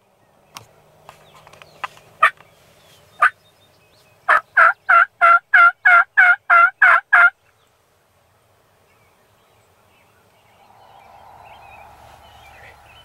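Wild turkeys calling: a few scattered short notes, then a loud run of about ten evenly spaced yelps, about three a second, lasting some three seconds.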